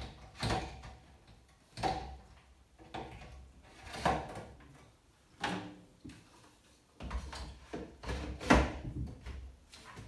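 Plastic fridge door shelves being handled and pushed back into place: a string of separate knocks and clatters every second or so, the loudest a little past the middle.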